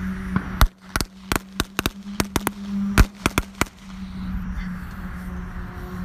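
Firecrackers going off: about a dozen sharp, irregular bangs over some three seconds, starting just under a second in, over a steady low hum.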